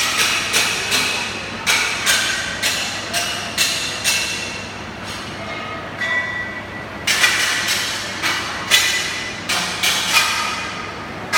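Hammer blows on steel, irregular at about two a second, each leaving a short metallic ring, with a brief lull about five seconds in.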